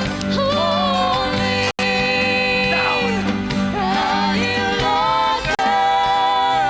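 Gospel-style music: a singing voice gliding over sustained instrumental chords, dropping out for an instant twice.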